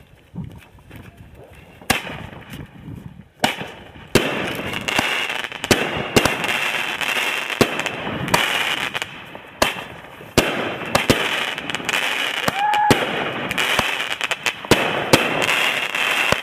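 Fireworks going off: a few separate bangs in the first few seconds, then from about four seconds in a near-continuous run of sharp bangs over a dense steady hiss, with a brief lull about ten seconds in.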